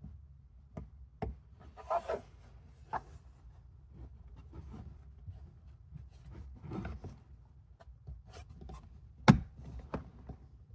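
Plastic interior trim being handled and fitted into place: scattered clicks and light knocks, a couple of brief rubbing scrapes, and one sharper knock about nine seconds in.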